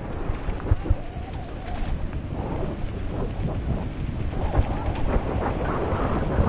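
Mountain bike riding fast downhill on a dirt and gravel trail: a steady rumble of tyres on the loose surface and wind on the camera microphone, with frequent knocks and rattles as the bike goes over bumps.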